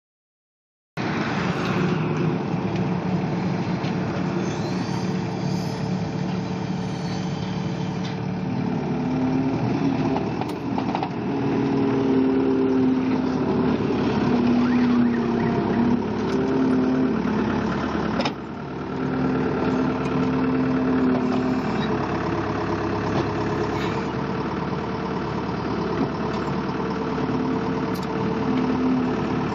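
Skid steer loader's diesel engine running, cutting in abruptly about a second in, with its pitch shifting higher about eight seconds in as the revs or the hydraulic load change.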